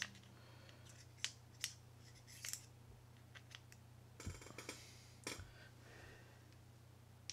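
Faint, scattered clicks and light taps of small metal parts of a Shimano Citica 200D baitcasting reel as a shaft is pushed through the reel body, with a short cluster of taps a little past four seconds in, over a low steady hum.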